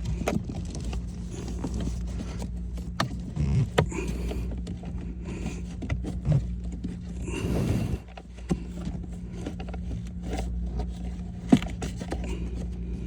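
Plastic cabin air filter and housing parts being handled and worked into place by hand: scattered clicks, knocks and a short scrape, with one sharp click near the end, over a steady low hum.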